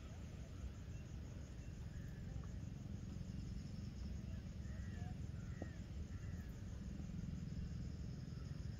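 Evening outdoor ambience: insects trilling steadily in a high pulsing chorus, with a few short bird chirps about halfway through, over a low steady rumble.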